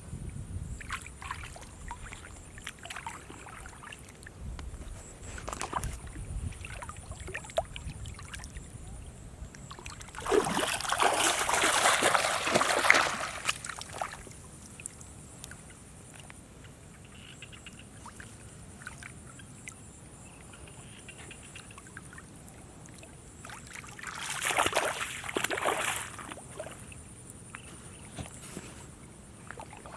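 Water splashing and sloshing, with small clicks in between and two longer, louder surges of splashing, the first about ten seconds in and the second near twenty-five seconds.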